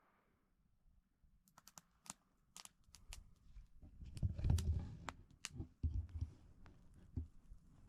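Faint, scattered light clicks and crinkling rustles of small objects being handled, such as a matchbox and packaging being checked, with a louder muffled rustle and knock about four seconds in.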